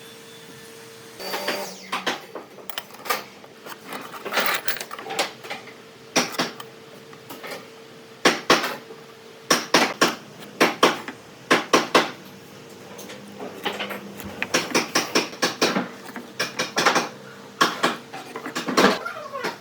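Irregular knocks and clatter of hand tools and wood being handled and tapped at a workbench, some strikes coming in quick runs, over a steady faint machine hum.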